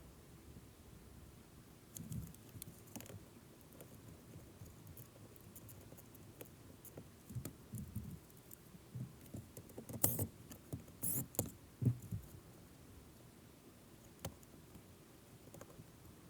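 Faint scattered clicks and scrapes of hand tools and metal and plastic parts being handled, with a few sharper knocks about ten to twelve seconds in, over a low steady hum.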